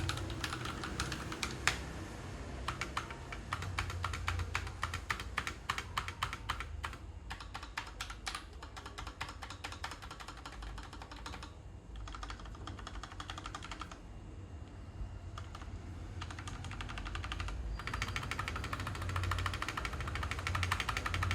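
Typing on an Akko 3098 mechanical keyboard with Akko Pink V2 switches and thick PBT double-shot Cherry-profile keycaps: fast runs of keystrokes, thinning out with short pauses around the middle and picking up again near the end.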